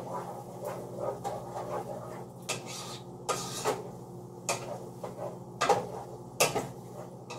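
A spoon scraping and clinking against a cooking pot as diced potatoes are stirred into beef picadillo, in irregular strokes with a couple of sharper knocks near the end. A steady low hum runs underneath.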